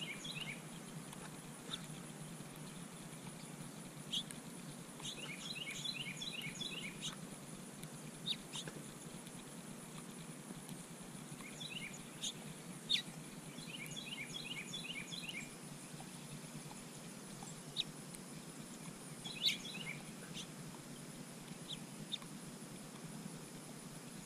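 Songbirds calling: scattered single chirps and two quick runs of repeated chirping notes, each lasting about two seconds, over a steady low background hum.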